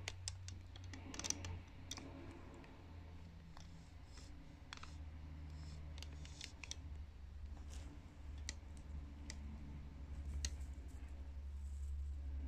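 Scattered light clicks and taps of beads being handled and picked up while threading, irregularly spaced, over a low steady hum.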